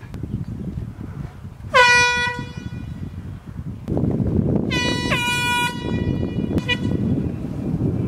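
Hand-held air horn blasted in short bursts: one loud blast about two seconds in, two overlapping blasts around five seconds, and a brief toot near the end. Wind rumbles on the microphone.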